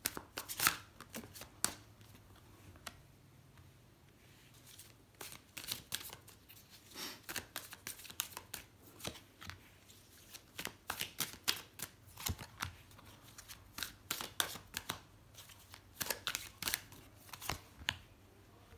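Tarot cards being shuffled and dealt out by hand: an irregular run of crisp snaps and flicks, with a quieter pause a few seconds in.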